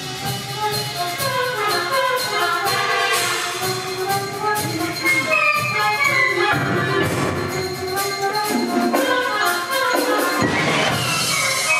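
Live concert band playing, many wind instruments sounding together.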